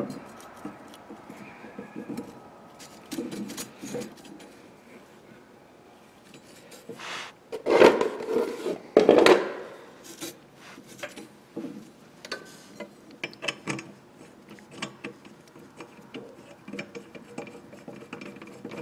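Metal clicks, taps and clanks of a steel mower blade being handled and fitted on the spindle under a lawn tractor's mower deck, with two louder clatters about eight and nine seconds in.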